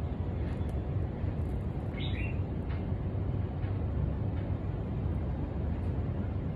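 Steady low rumble of city traffic, with one short bird chirp about two seconds in and a few faint clicks.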